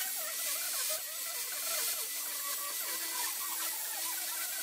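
Makita angle grinder with a flap disc grinding steel: a steady, loud grinding hiss over the motor's whine, which steps up slightly in pitch about halfway through.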